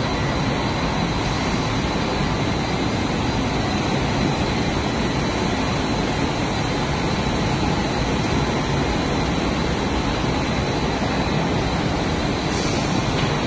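Steady, even roar of a colour coating line's machinery running in the factory hall, with a faint steady whine.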